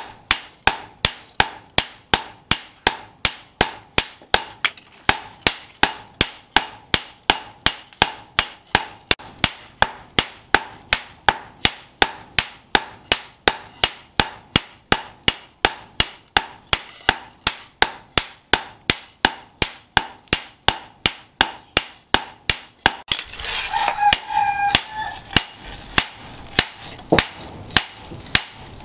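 Long-handled forging hammer striking a red-hot steel cleaver blank on a steel post anvil: a steady rhythm of ringing metal blows, about two and a half a second. About three-quarters through, the rhythm breaks, and slower, less regular blows follow.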